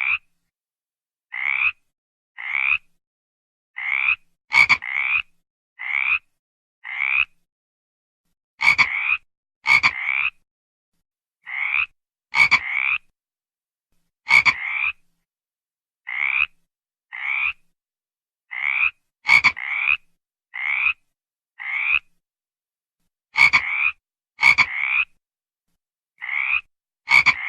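A frog calling: short croaks repeated about once a second, sometimes in quick pairs, some starting with a sharp click, with silence between.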